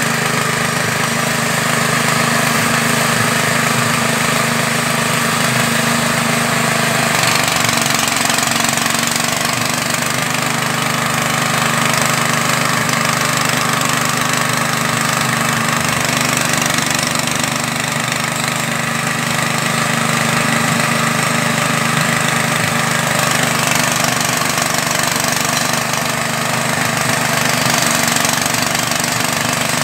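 Small air-cooled engine running steadily under load, driving a floating fish-feed pellet extruder as pellets come out of the die.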